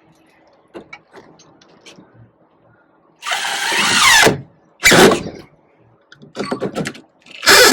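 Power drill driving long grabber screws through a door hinge: a few light clicks of the screw being set, then a run of about a second with its pitch falling, a short second burst, and another starting near the end.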